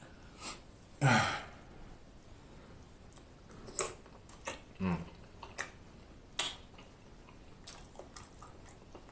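Close-miked eating: wet lip smacks and mouth clicks while chewing, with a short low hum about a second in and another near five seconds.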